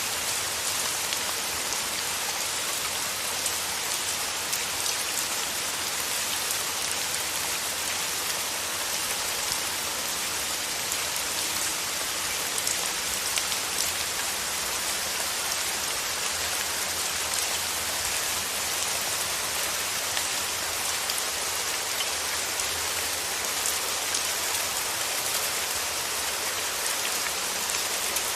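Steady rain falling: an even hiss with many small drops heard separately, unchanging throughout.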